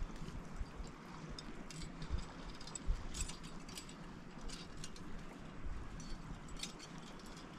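Scattered light metallic clicks and rattles with a few dull knocks, as of a steel beaver trap and its chain being handled and set.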